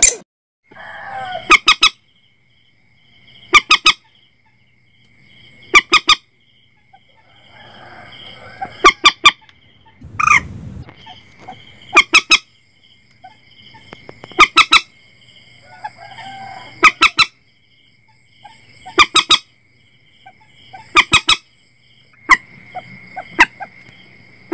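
Mandar batu (common moorhen) calling over and over: short groups of three or four sharp, honking notes about every two seconds. A steady high whine runs underneath, and there is one dull thump about ten seconds in.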